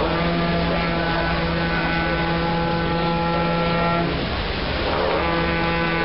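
Live folk music playing long, flat held notes, two close tones sounding together. The note breaks off about four seconds in and starts again a second later, over a steady background hiss.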